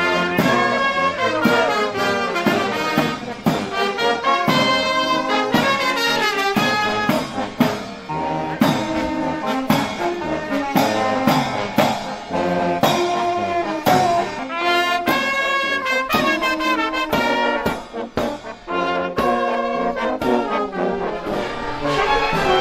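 Brass band playing a Romanian folk tune for a marching procession, with a steady drum beat.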